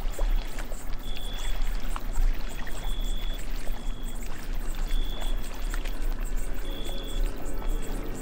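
Steady rush of running water, with short high whistled notes at one pitch recurring every second or so over it.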